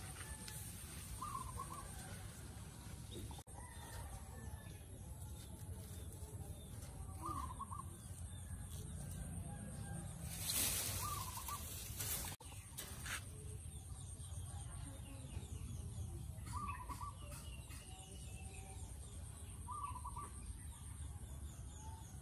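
Chickens clucking in the background, about five short calls spaced a few seconds apart. A brief burst of rustling near the middle is the loudest sound.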